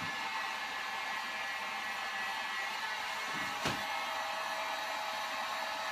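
Handheld electric heat gun running steadily, a fan rush with a faint steady whine, as it shrinks glue-lined heat-shrink tubing down over a cable jacket. A light tap about three and a half seconds in.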